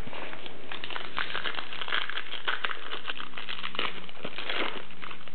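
Shiny wrapper of a 1998-99 Flair Showcase basketball card pack crinkling steadily in the hands as it is pulled from the box and opened.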